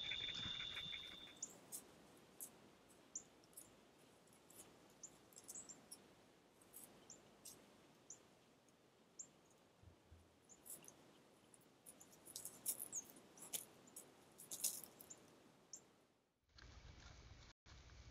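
Scattered, irregular sharp clicks and ticks of white-tailed deer hooves stepping on a gravel road, busiest between about 12 and 15 seconds in. A steady high insect trill fills the first second or so.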